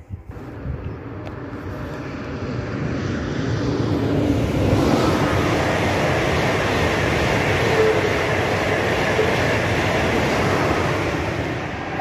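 An ICE high-speed electric train passing at speed: the noise of wheels on rail and rushing air builds over the first four seconds, holds steady, and starts to fade near the end as the train draws away.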